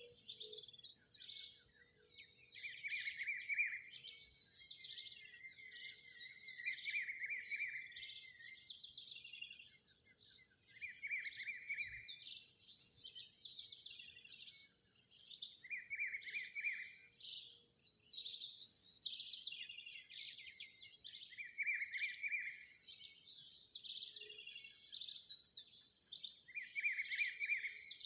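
Dawn chorus: several birds singing and chirping over a steady high-pitched insect drone. One bird repeats a short song phrase every few seconds.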